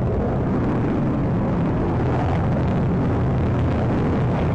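Jet aircraft engine noise: a loud, steady, deep rush with no break.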